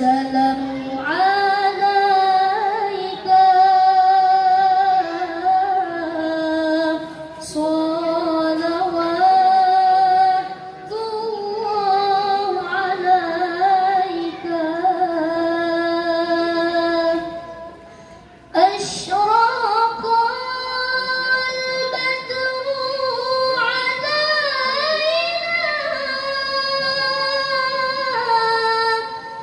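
A young woman reciting the Quran in the melodic tilawah style, her voice amplified through a microphone. She sings long, ornamented held phrases with wavering turns. A little past halfway she pauses for a breath of about a second, then starts a new phrase at a higher pitch.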